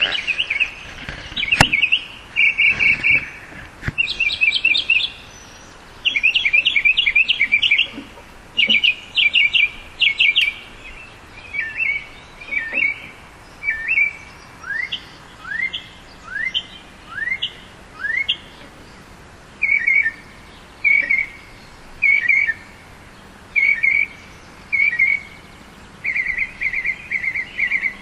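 Northern mockingbird singing: a string of varied phrases, each repeated several times before switching to the next. Rapid note series come first, then a run of about five rising slurs about halfway through, then short phrases about once a second.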